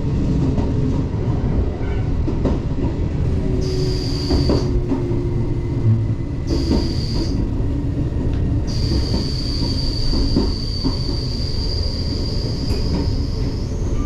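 JR 381 series limited express electric train running at speed, heard from inside the car near the door: a steady rumble of wheels on rail with occasional knocks. A high squeal sets in three times, the last lasting about five seconds.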